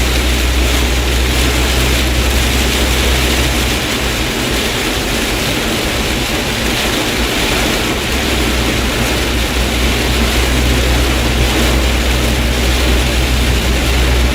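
Heavy rain pelting a truck's roof and windshield, with tyres running through standing water and a steady low engine and road drone, heard from inside the cabin.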